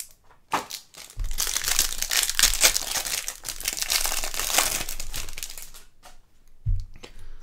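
Plastic wrapper of a trading-card pack crinkling as the pack is opened and the stack of cards is slid out. A dense crackling lasts about four seconds and dies away near the end.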